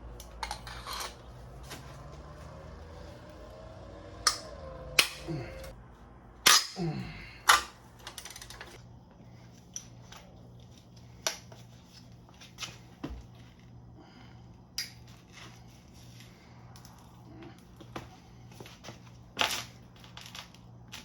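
Irregular sharp metallic clicks and clanks of hand tools working on a Subaru EJ257 engine during teardown, a cluster of louder knocks a few seconds in, over a steady low hum.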